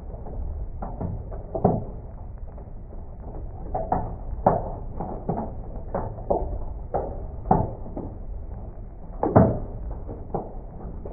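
Small hail striking a window and building during a thunderstorm, heard slowed down to about a sixth of real speed. Irregular knocks come roughly once a second over a steady low rumble of rain, and the loudest knock is about nine seconds in.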